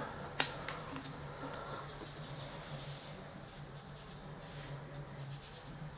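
A sharp click about half a second in, then salt trickling from a salt container into a tablespoon: a faint grainy hiss in short spells, over a faint steady low hum.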